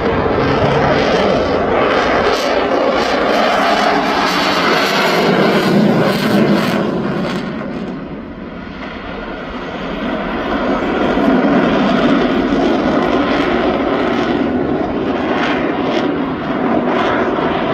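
Dassault Rafale fighter jet's twin turbofan engines roaring loudly overhead, the roar easing about eight seconds in, then swelling again.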